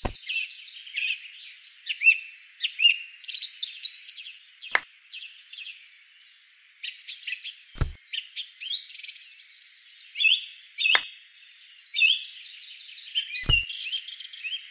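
Many small songbirds chirping and whistling in quick, overlapping calls. Five short soft knocks stand out, the deeper ones where miniature carrots are dropped into a small woven bamboo basket.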